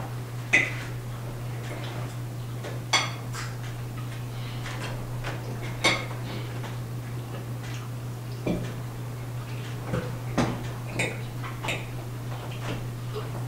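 Forks and knives clinking and scraping on plates during a meal, a scattering of short sharp clinks a second or two apart, over a steady low hum.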